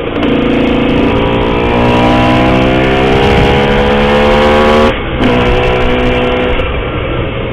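Cagiva Mito two-stroke single-cylinder engine with an Arrow exhaust, accelerating with revs rising steadily for about five seconds. The revs then drop sharply and run on at a lower, steadier pitch.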